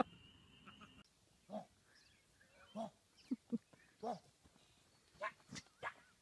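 A young deer bleating: about eight short, faint cries, each rising and falling in pitch, spread through several seconds.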